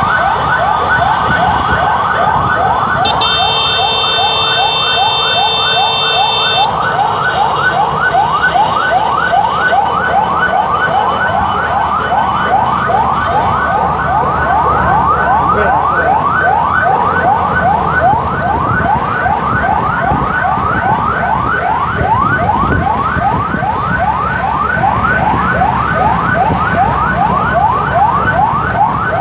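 Ambulance siren on a rapid yelp, quick rising sweeps about three a second, going on steadily over motorcycle engine and road noise. A shrill high steady tone joins for a few seconds near the start.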